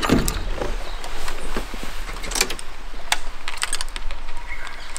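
Scattered light clicks and taps at irregular intervals, over a low steady rumble.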